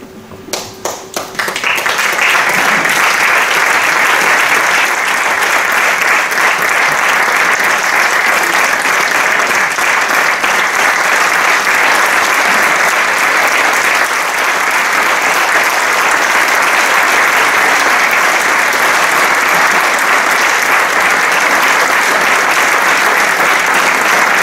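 Applause from a hall audience and the ensemble's members: a few scattered claps, then within about two seconds a steady, dense clapping that holds at full strength.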